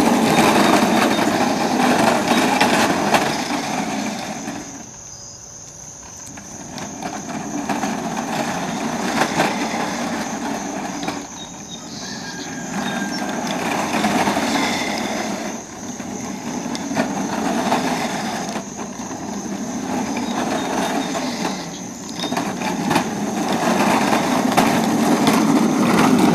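Drifter drift kart's wheels rolling and sliding over asphalt, a rough grinding rumble that swells as the kart comes close and fades as it pulls away, several times over. Crickets chirp steadily in the background.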